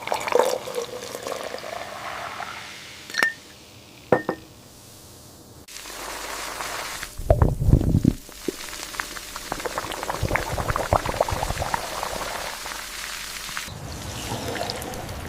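Fizzy soda pouring into a glass and fizzing, with two sharp clicks about three and four seconds in and a louder, low-pitched stretch around seven seconds in, then a steady crackle of popping bubbles.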